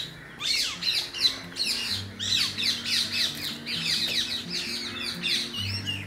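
Many birds calling at once: a rapid, overlapping chatter of short chirps and squawks, many falling in pitch, over background music with sustained low notes.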